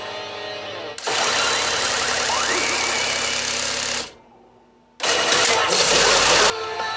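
Pachinko machine's sound effects from its speakers: a dense, loud effect sound starts suddenly about a second in, cuts off about four seconds in, and after a second of near silence a loud blast hits and runs for about a second and a half.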